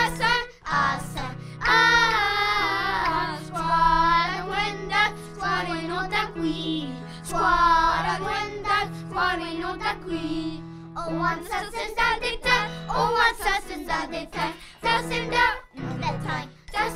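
A class of young children singing a Wendat-language song in unison, accompanied by piano. Several sung notes are held long and steady.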